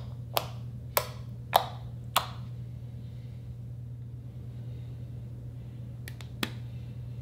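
Fingers poking fluffy slime, giving four sharp pops about every half second as air pockets in the slime burst. Near the end, a couple of quick light clicks as a lipstick is handled.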